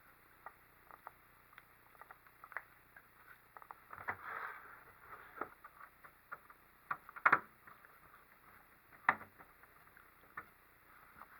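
Scattered small clicks and taps of 3D printer kit parts and fasteners being handled during assembly, with a brief rustle about four seconds in and two louder knocks, one a little past seven seconds and one about nine seconds in.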